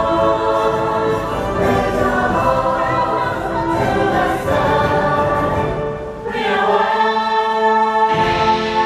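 Show soundtrack: a choir singing long held chords over music, dipping briefly about six seconds in before a new chord comes in.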